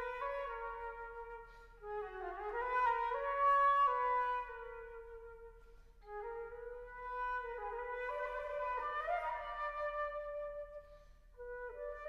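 Solo concert flute playing a slow passage of held notes in its middle register, with a note sliding down in pitch about two seconds in. The phrases break for short breaths about two seconds in, about six seconds in and near the end.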